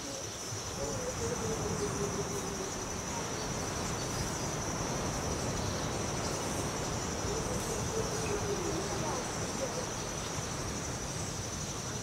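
An insect's continuous high-pitched buzzing trill, unbroken and steady, over a rushing background noise. A faint lower wavering tone drifts downward twice, early on and again past the middle.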